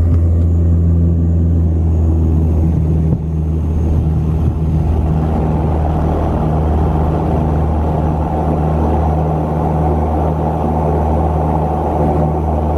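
An Antonov An-24RV's Ivchenko AI-24A turboprop engines and propellers droning steadily, heard from inside the cabin beside the engine, with rumble from the wheels rolling on the concrete runway. From about five seconds in, a louder rushing noise builds over the drone.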